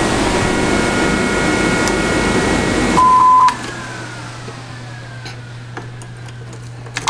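The car's ignition is switched off and back on. A steady fan-like whir cuts out just after a short, high electronic beep about three seconds in. A second identical beep sounds at the very end as power returns.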